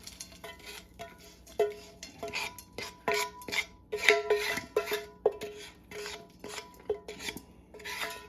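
A spatula scraping and knocking against a frying pan, about two strokes a second, the pan ringing briefly at each stroke, as the home fries are shovelled out of it.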